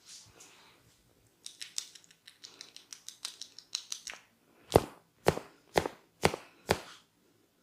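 A barber's hands massaging a client: first a quick run of small crackly rubbing sounds, then five sharp slaps on the body in a steady rhythm, about half a second apart.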